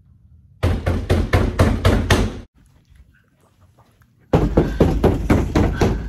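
Fist pounding hard on a locked wooden door: someone locked out demanding to be let in. The blows come in two rapid flurries of about seven each, roughly four a second, with a pause of nearly two seconds between.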